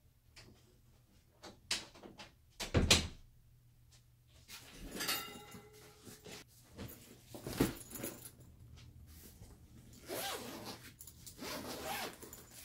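A door worked by hand, with a few clicks and a loud knock about three seconds in, then rustling and handling noise, and a padded camera bag's zipper pulled open in two strokes near the end.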